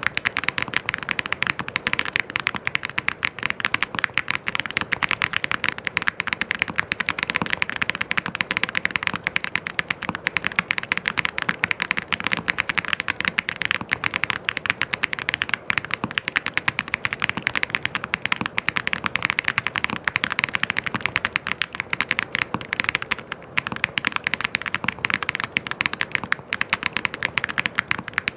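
Continuous fast typing on a mechanical keyboard, a dense run of key clicks with a brief pause about two-thirds of the way through.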